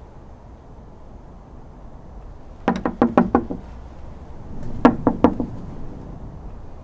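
Knuckles knocking on a front door: two rounds of quick raps, about five and then about four, a second or so apart.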